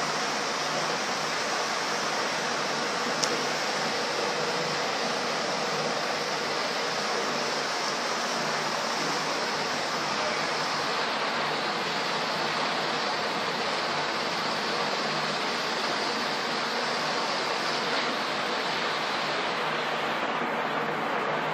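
A steady rushing noise, with one short click about three seconds in; the high hiss thins out near the end.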